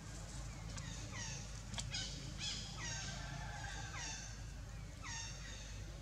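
Baby macaques calling: a string of short calls, each sliding down in pitch, repeated about every half second, over a few sharp clicks.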